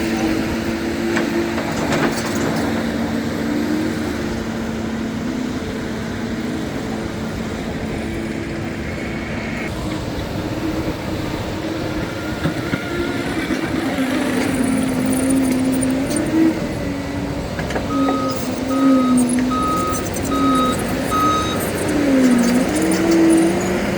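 Construction vehicle engine running, its pitch wavering up and down with the throttle, and a backup alarm beeping five times about eighteen seconds in.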